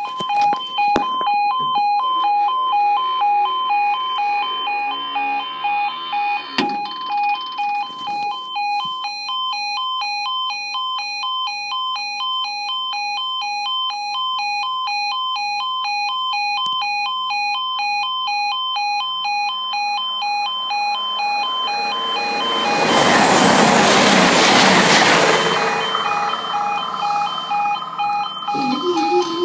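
Level crossing warning alarm sounding continuously: an electronic two-tone alarm pulsing evenly. A train passes over the crossing for about four seconds roughly three-quarters of the way through, the loudest part.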